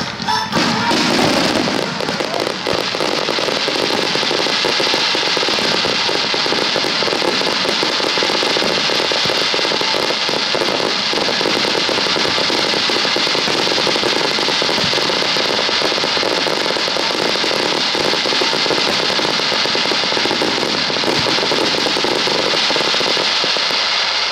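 A starmine fireworks barrage: a dense, unbroken run of aerial shells bursting, with crackling stars and overlapping bangs.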